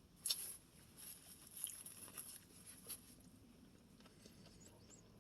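Faint, scattered sounds of eating a chicken sandwich: soft chewing and small handling noises, with a brief louder one a moment after the start.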